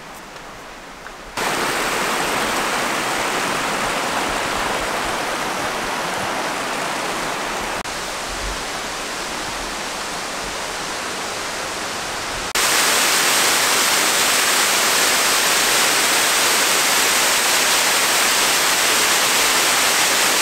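Waterfall and creek water rushing in a steady hiss. It comes in suddenly about a second in, and turns louder and brighter about twelve seconds in.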